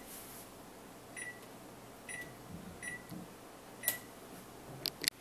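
Electric range's oven control panel beeping as its buttons are pressed to set the bake temperature to 375 degrees: four short high beeps at one pitch, roughly a second apart, followed by a couple of faint clicks near the end.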